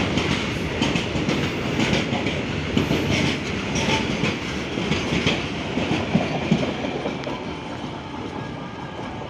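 An Indian Railways goods train's wagons roll past close by, their wheels clattering on the rails. The sound eases off gradually near the end as the tail of the train, with the guard's brake van, goes by.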